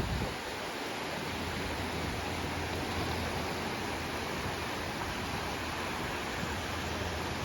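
Steady rushing hiss of wind and water while a paraw outrigger sailboat is under sail, with a low rumble of wind on the microphone.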